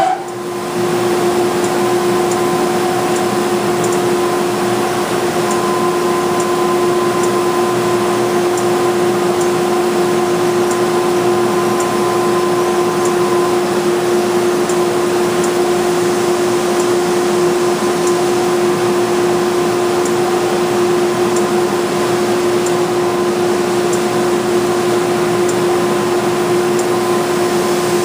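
Wide belt sander running steadily with a constant hum, with faint regular ticks about every second and a half.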